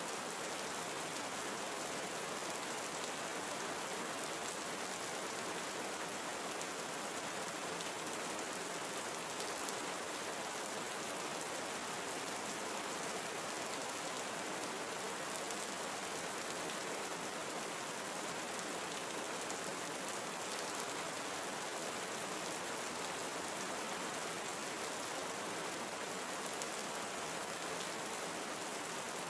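Steady rainfall in a tropical rainforest, an even hiss of many raindrops on leaves and surfaces with faint scattered drop ticks.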